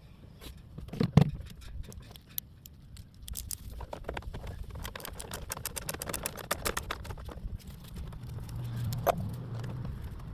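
Hand tool and plastic engine-bay parts clicking and knocking while a screw is undone from the air intake: a loud knock about a second in, then a run of irregular quick clicks, and a low hum near the end.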